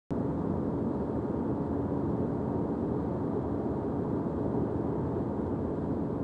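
Steady road and engine noise heard inside the cabin of a car driving at motorway speed: a low, even rumble with a faint steady hum in it. It cuts in just after the very start.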